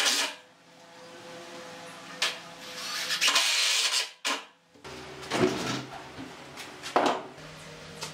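Cordless drill running in short bursts as it drives screws into a pine cabinet frame, the longest run starting about two and a half seconds in, with wooden knocks and clatter between. A sharp knock comes near the end.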